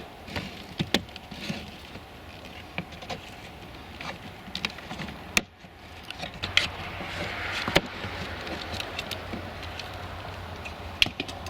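Scattered clicks and cracks of plastic and metal as a GM full-size truck's exterior door handle assembly is pried up off the door, with a few sharper snaps just past the middle.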